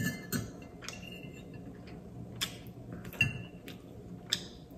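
Metal fork clinking and scraping against a ceramic dinner plate: about seven separate light clinks spread over the few seconds, some ringing briefly, as food is gathered from the plate.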